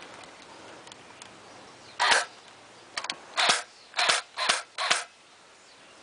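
Airsoft rifle firing six short shots or bursts, starting about two seconds in and spread over about three seconds.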